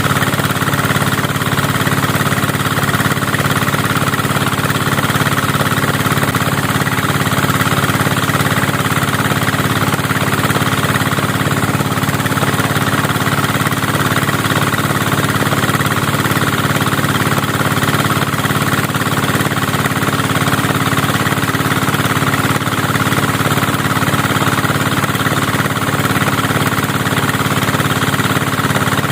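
Engine-driven rice threshing machine running steadily at constant speed, a continuous loud drone.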